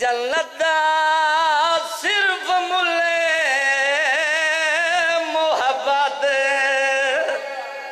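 A man chanting a majlis recitation into a microphone, in long held notes with a wavering pitch, in three phrases.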